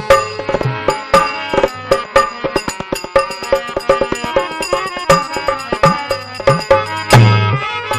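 Instrumental interlude of a Rajasthani folk bhajan: a harmonium playing the melody over fast hand-drum strokes, with deep bass drum strokes about a second in and again near the end.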